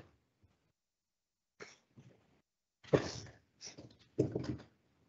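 A person coughing several times in short bursts, the loudest about three seconds in.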